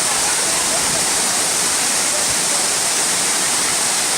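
Waterfall rushing, a loud steady hiss of falling water with no change.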